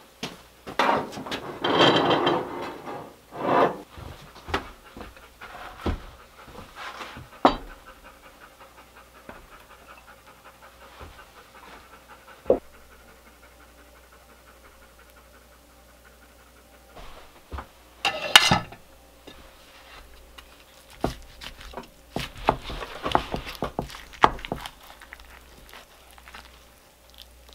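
A golden retriever panting steadily, in quick even breaths, with a few louder knocks and scrapes of dishes and a spatula as lasagna is served.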